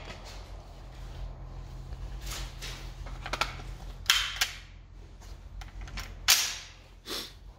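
Metal clicks and clacks of an SKS rifle being handled as its detachable magazine is fitted. A few sharp clacks come at uneven intervals, the loudest about four seconds in and again just after six.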